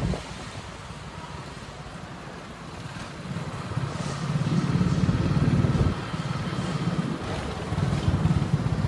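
Motorcycle engine running as it is ridden slowly, building from about three seconds in and easing off suddenly at about six seconds, then picking up again.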